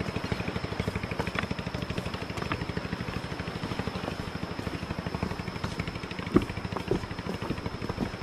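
A small engine running steadily with a rapid, even throb, and a single sharp knock a little past the middle.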